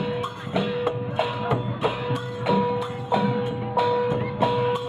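Percussion-led music: drums struck in a steady beat, a bit under two strikes a second, with a held steady note sounding over them.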